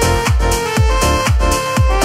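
Electronic dance background music with a steady kick-drum beat about twice a second under sustained synth tones.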